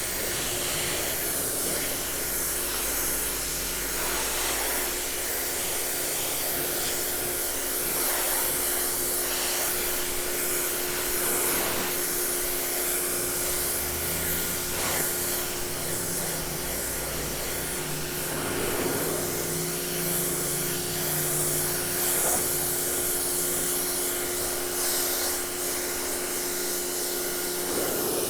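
Prymax 3000 PSI electric pressure washer running steadily: a motor-and-pump hum under the hiss of water jetting from a 15-degree nozzle onto deck steps.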